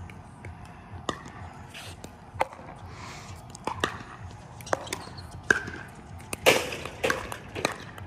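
Pickleball paddles striking a plastic pickleball in a rally: sharp pops at irregular spacing, roughly one a second, the loudest hit about six and a half seconds in.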